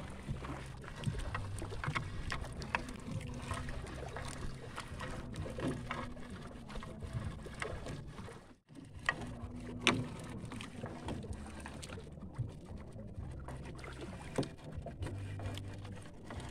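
Scattered knocks and clicks from a fishing net being handled aboard a small outrigger boat, over a low steady hum, with a brief dropout about halfway.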